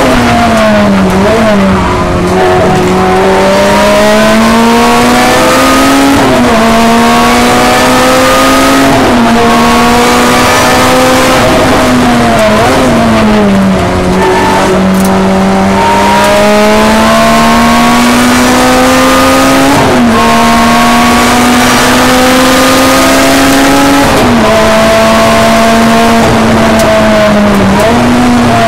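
Lotus Elise race car's four-cylinder engine at racing speed, heard from inside the cockpit. Its pitch climbs slowly in each gear and drops sharply at each gearchange, with a couple of deeper falls and recoveries as the car slows and picks up again.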